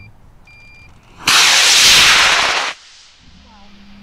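Model rocket motor firing at lift-off: a loud hissing rush that starts about a second in, lasts about a second and a half and cuts off sharply, then fades as the rocket climbs away. A short electronic beep sounds just before it.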